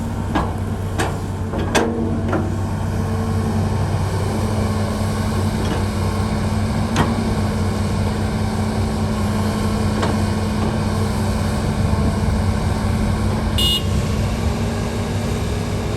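Heavy excavator's diesel engine running steadily under load, with a few sharp metallic knocks from the working machine and a brief high squeak near the end.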